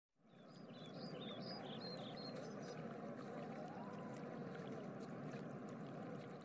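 Faint, steady rushing ambience like wind or running water that fades in and out. In the first couple of seconds a run of short, high chirps steps up and down in pitch.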